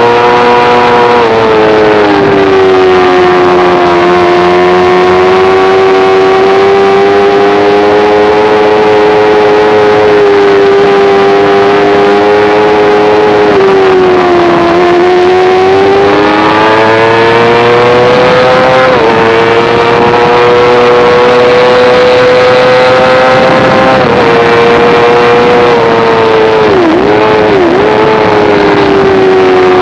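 Sport motorcycle engine held at high revs while ridden hard on track, heard onboard: a high, steady engine note that sags and climbs with the throttle, breaks at gear changes, and dips twice in quick succession near the end, over loud wind rush.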